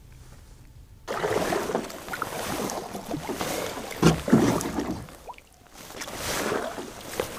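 Kayak being paddled: paddle strokes in the water, a rushing, splashing noise that swells and eases, starting abruptly about a second in. Two heavier knocks come about four seconds in.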